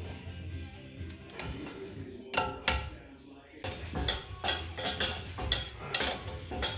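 Hand tools clinking and tapping against metal suspension parts as a ratchet works on the ball joint, with a string of sharp clicks from about halfway through. Music plays in the background.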